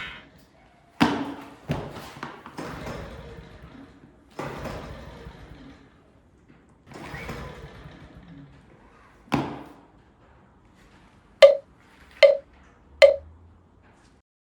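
A series of irregular knocks and clatters, then three sharp, ringing taps a little under a second apart near the end.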